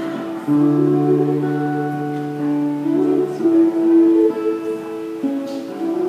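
Acoustic guitar accompaniment under a woman singing into a microphone, the notes long and held.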